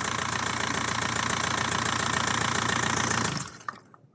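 Diesel car engine idling steadily with its even clatter, its sound now normal after the head-gasket rework, then switched off about three-quarters of the way in, leaving only a few faint clicks.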